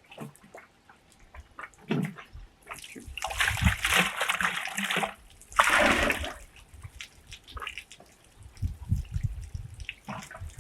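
Water splashing and sloshing, in two longer spells about three and six seconds in, with drips and small knocks between.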